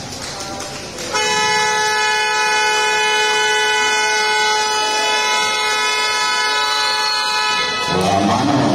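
A basketball scoreboard horn sounds one long, steady blast, starting about a second in and cutting off after about seven seconds: the buzzer marking the end of the game.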